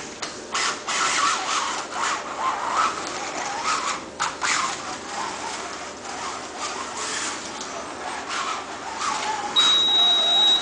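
Slot car running on a rally slot track: the small electric motor whines and the car rattles over the track, the noise rising and falling as it speeds up and slows. Near the end a high steady tone sounds for about a second.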